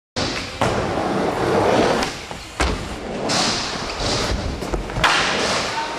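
Skateboard wheels rolling over concrete, with three sharp board impacts: one near the start, one mid-way and one near the end.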